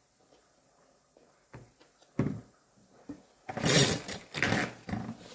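Rustling and handling noise at a dining table. A sharp knock comes about two seconds in, then a loud crackling rustle in several bursts starts a little past the middle.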